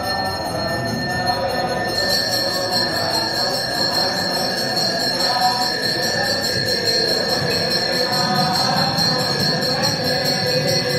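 Temple bells rung rapidly and continuously during worship at a shrine, a dense metallic jangle over a steady ringing tone; the jangle grows busier about two seconds in.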